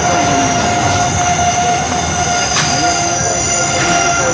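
Local passenger train's steel wheels squealing on the rails, a steady high screech of several pitches held together over the rumble of the running coach, heard from the coach's open doorway.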